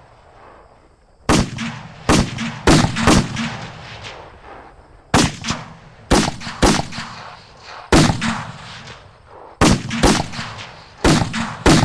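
Gunfire sound effect: about a dozen single gunshots in irregular clusters of two to four, each with an echoing tail, starting a little over a second in.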